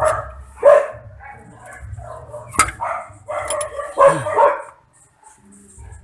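Dog barking several times in short, irregular barks, with a sharp click about two and a half seconds in.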